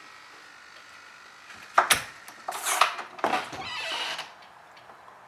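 A faint whine, then a sharp click about two seconds in and three short rattles from the servo-driven door lock mechanism as it is worked.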